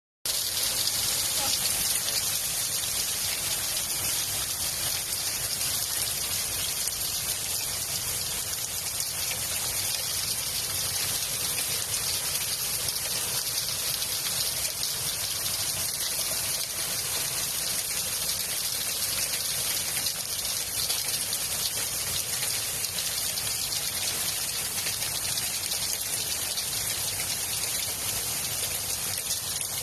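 Hail storm: hailstones and heavy rain pelting down hard and without let-up, a dense hiss of countless small hits.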